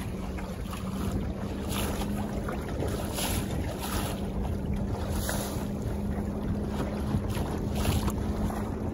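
Water rushing and slapping along the wooden hull of a Heron sailing dinghy under way, with several brief splashes, and wind buffeting the microphone.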